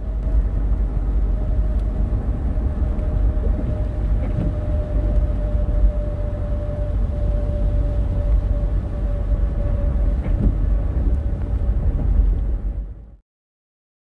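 Road noise inside a car's cabin while driving on an expressway: a steady low rumble from tyres and engine with a faint steady hum above it. It cuts off suddenly near the end.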